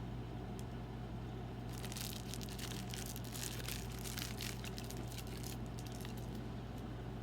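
Close-miked eating of a brownie, with a dense stretch of fine crackling and crinkling from about two seconds in to about five and a half seconds in, over a steady low hum.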